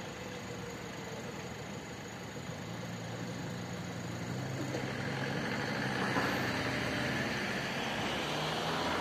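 Lorry and car engines idling and then pulling away across a level crossing, growing louder from about three seconds in as they approach.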